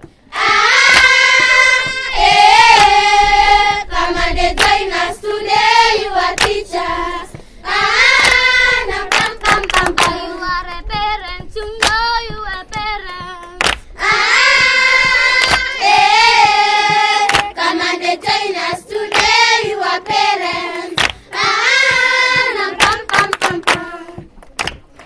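A group of voices singing a song in repeating phrases with long held notes, with hand claps.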